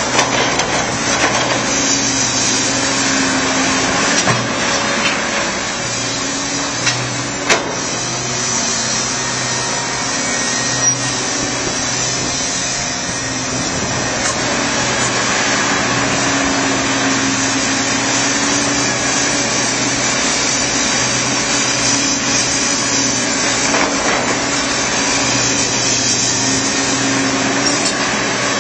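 John Deere backhoe loader's diesel engine working under load, its revs rising and easing every few seconds as the machine digs and loads dirt. A couple of sharp metallic knocks come about a third of the way in.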